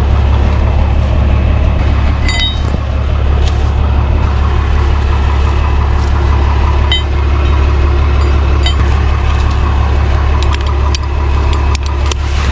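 Tow truck engine idling steadily, powering the winches, with a few light metallic clinks from hooks or chain about two, seven and nine seconds in.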